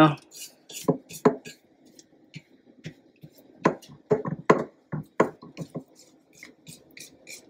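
Silicone spatula scraping down the sides of a glass mixing bowl of thick chocolate frosting: irregular short scrapes and taps.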